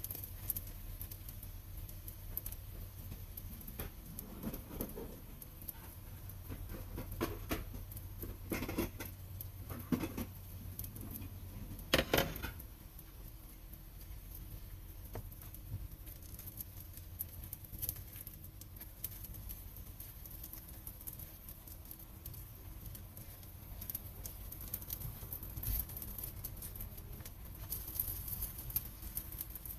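Corned beef and instant-noodle pancakes frying in oil in a nonstick pan, a steady crackling sizzle over a low hum. A silicone spatula scrapes and presses them, with a run of louder scrapes in the first half, the loudest about twelve seconds in.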